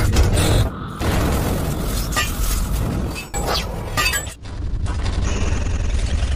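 Cinematic logo-reveal sound effects: deep booms and several sudden shattering crashes over a rumbling music bed, settling into steadier music about two thirds of the way through.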